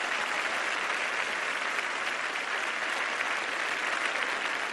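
Crowd applauding, a steady dense clapping that holds at an even level.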